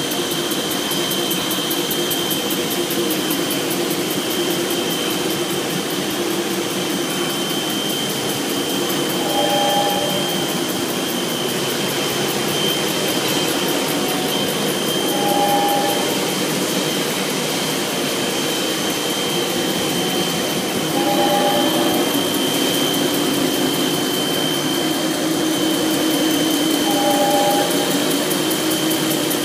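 A Leadwell MCV 1300B vertical machining center running, with a steady high whine over a constant hum. A brief two-note tone sounds about every six seconds, four times.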